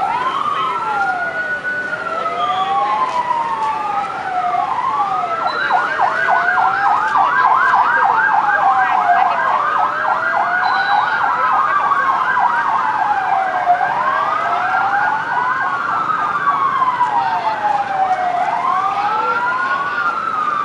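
Several ambulance sirens sounding at once: two slow rising-and-falling wails out of step with each other, joined about five seconds in by a rapid yelp.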